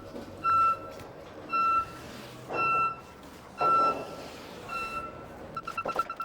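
Warning alarm of a moving scissor lift, giving single high beeps about once a second. Near the end it changes to rapid beeping.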